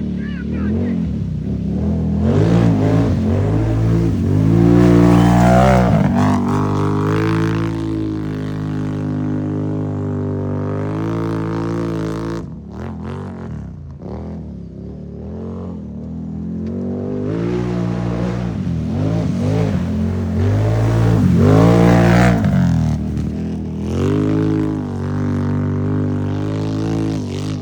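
ATV engine revving under throttle, its pitch rising and falling as the rider accelerates and lets off. It climbs to two loud peaks, one about five seconds in and one near twenty-two seconds, with a quieter dip between them.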